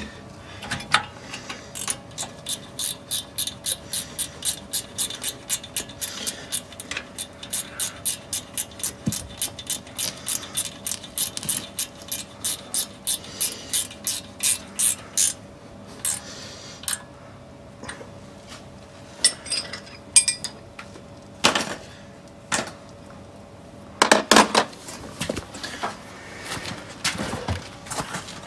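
Hand ratchet wrench clicking in quick, even strokes, about three a second, as bolts are run in while the brake caliper is refitted. The clicking stops about halfway through, and a few metal knocks follow later on.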